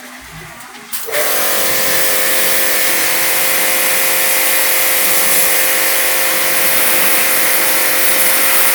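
High-pressure jet washer starting about a second in, then running steadily: a loud hissing water spray over a steady machine hum.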